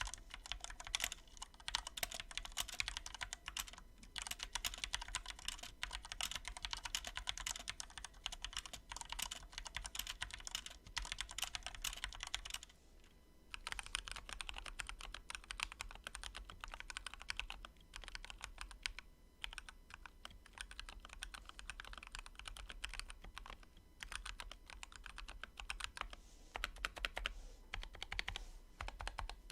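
Typing on a Redragon K552 mechanical keyboard: a fast, continuous stream of keystrokes, with a short pause about 13 seconds in and briefer lulls later.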